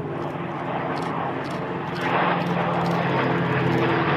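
Four Spitfires flying past in close formation: the drone of their V12 piston engines, getting louder about two seconds in as they come closer.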